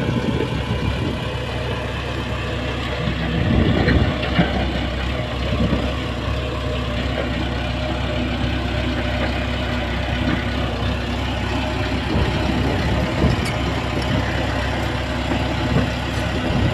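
Diesel engine of a Shantui bulldozer running steadily at work, a little louder for a moment about three to four seconds in.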